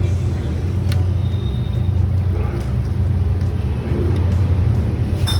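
Steady low engine rumble from a motor vehicle, running evenly without breaks.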